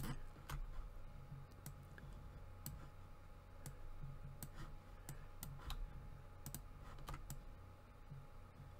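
Faint, irregular clicks of computer keyboard keys, about a dozen scattered through, over a low steady hum.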